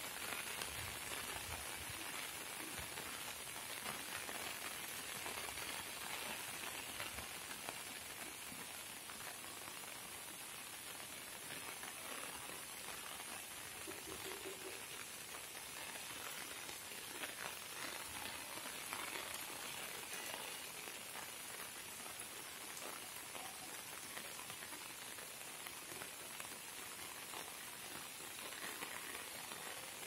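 Steady rain falling on trees and wet rock: an even hiss flecked with the fine patter of drops.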